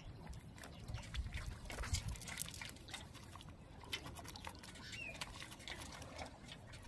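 Rustling and irregular small wet clicks of a fishing net being handled by hand as fish are picked out of the mesh, with a short high chirp about five seconds in.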